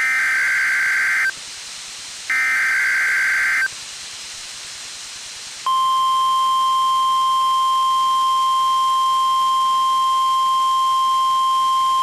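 NOAA Weather Radio emergency alert: two bursts of screeching digital SAME header data, each a little over a second long and about a second apart. About six seconds in, the steady single-pitch warning alarm tone begins and holds. The tones open the broadcast of a tornado watch.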